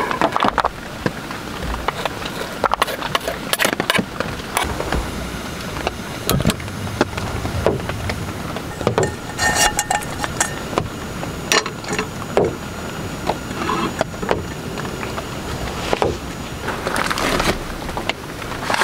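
Steady rain drumming on the tent, with irregular knocks and clinks of cookware being handled: a knife scraping on a wooden chopping board and a stainless steel frying pan being picked up and set on the gas stove.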